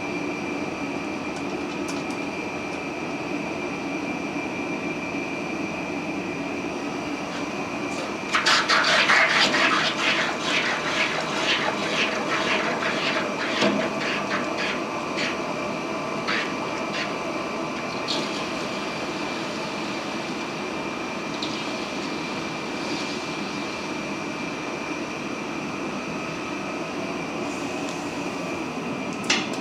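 Red-hot 1045 steel ball quenched in water, starting suddenly about eight seconds in with a loud sizzle and rapid crackling that die away over several seconds. Under it, a steady drone from the running gas forge and the quench tank's circulation pump.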